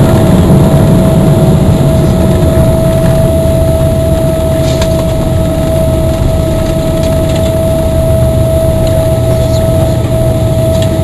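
Cabin noise of a Boeing 777-300ER on its landing roll: a loud, steady rumble with one constant high tone over it, slowly easing as the aircraft slows down on the runway.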